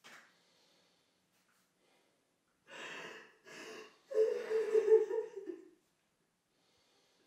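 A woman crying: two short gasping breaths about three seconds in, then a louder drawn-out voiced sob.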